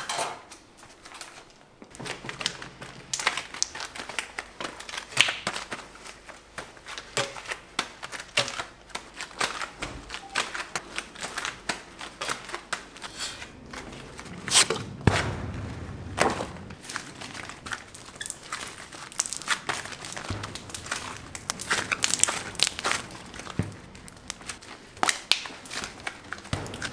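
Irregular crinkling, rustling and sharp clicks from hands in work gloves handling soft candy masses and silicone baking mats on a work table.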